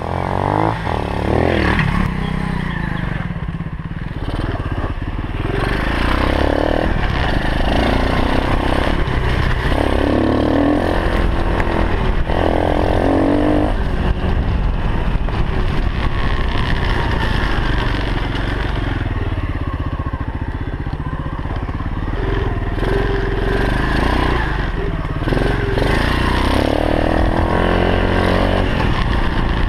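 125cc single-cylinder pit bike engine revving up and down as the bike is ridden, the pitch rising and falling with the throttle, over a steady rumble of wind on the onboard microphone.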